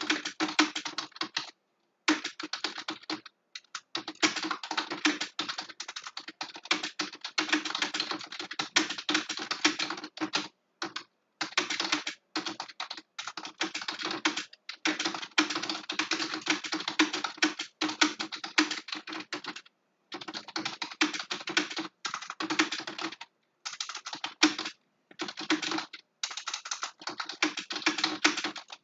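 Fast typing on a computer keyboard: rapid runs of key clicks broken every few seconds by brief pauses.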